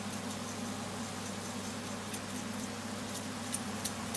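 Black pepper grinder twisted over a pan of frying minced meat, giving scattered small dry clicks and crackles over a steady low hum.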